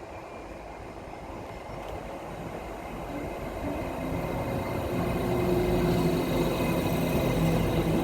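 A train approaching, growing steadily louder, with a steady hum coming in about halfway through.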